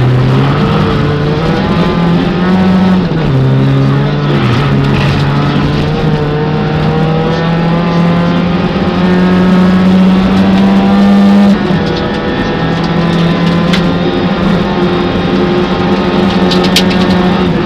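Peugeot 205 rally car's four-cylinder engine heard from inside the cockpit, driven hard. The revs rise and fall with gear changes, then make one long climb before dropping sharply about eleven and a half seconds in.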